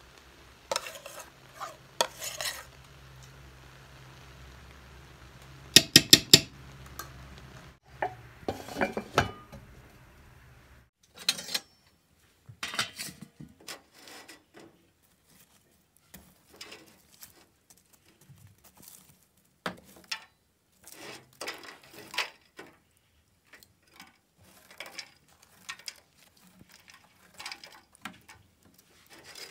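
A metal spoon clinking and scraping against a metal cooking pot and a china plate as butter is spooned onto rice, with a cluster of sharp loud taps about six seconds in. After a pause, metal tongs and a poker scraping and knocking in the firebox of a metal stove as charcoal embers are stirred, a scattered series of clinks and scrapes.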